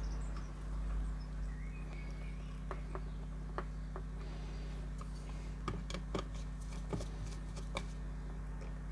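Small scattered clicks and taps of a wire being handled and fitted into an LED signal splitter's terminals, over a steady low electrical hum.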